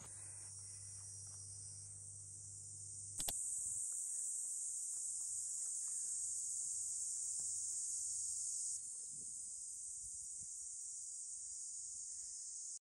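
A steady, high-pitched shrilling chorus of cicadas. It steps louder about three seconds in and drops back a little near nine seconds, with a faint low hum under it for the first few seconds.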